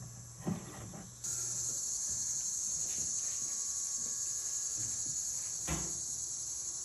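A steady, high-pitched insect chorus that jumps abruptly louder about a second in, with two soft knocks, one near the start and one near the end.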